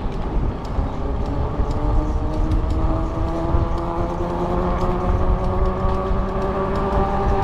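E-bike motor whine rising slowly in pitch as the bike picks up speed, over a low rumble of wind and tyre noise.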